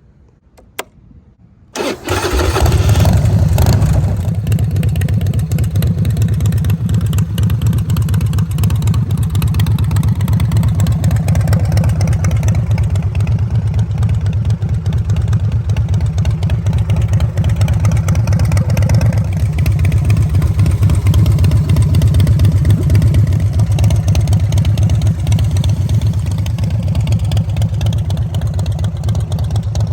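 Harley-Davidson Bad Boy's V-twin engine started: a click, then the engine catches about two seconds in, runs loudest for the first couple of seconds and settles into a steady, loud run.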